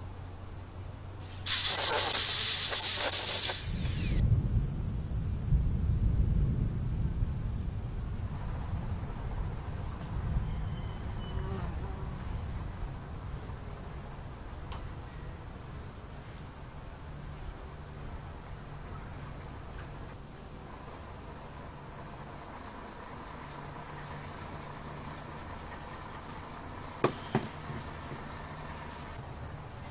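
Crickets chirping steadily throughout. About two seconds in, an angle grinder's cup wire brush runs briefly and loudly against the motorcycle hub, then winds down. Two sharp knocks come near the end.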